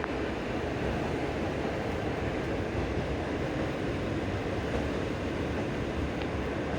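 Passenger train running on the rails, a steady rumble of wheels and carriage heard from the train's window, with no distinct rhythm of rail-joint clicks.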